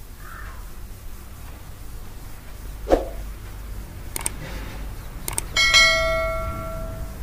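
Subscribe-button animation sound effects: a short pop about three seconds in, then mouse clicks around four and five seconds in. A notification bell ding follows the click on the bell icon and rings on for about a second and a half.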